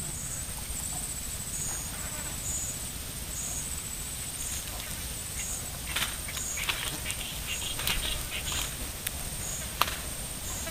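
Outdoor riverbank ambience: a steady low rumble under a constant high-pitched buzz that pulses regularly, with a few light clicks and rustles from the fishing pole and line being handled and recast, and one sharp click near the end.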